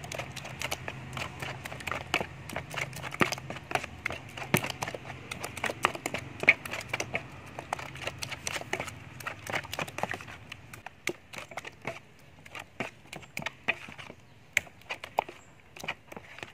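Metal spoon stirring a wet egg and minced-meat mixture in a plastic bowl, clicking and scraping against the bowl in an irregular run of quick clicks that thins out in the last few seconds.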